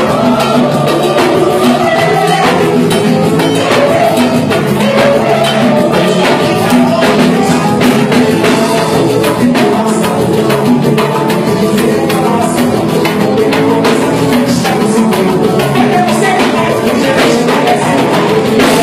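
Live samba band playing loud and without a break: men singing into microphones over tall hand drums and other percussion keeping a dense, steady beat.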